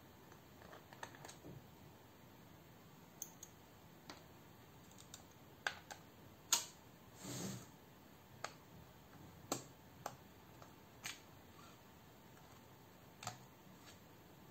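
Faint, irregular small clicks of a tri-point screwdriver turning out a battery screw in a MacBook Pro, about a dozen scattered through the stretch, with one short scrape about halfway.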